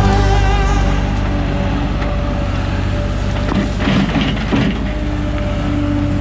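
Background guitar music over a machine's steady low rumble, with a short burst of crunching about four seconds in.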